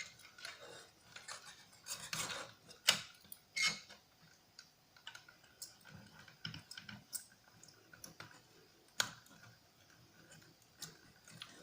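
Scattered small clicks and taps of hand tools on the brittle plastic of a quadcopter drone's propellers and their screws, with a few sharper clicks about three seconds in, shortly after, and about nine seconds in.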